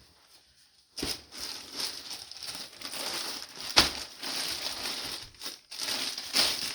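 Plastic bag crinkling and rustling as it is handled, starting about a second in, with one sharp crackle near the middle.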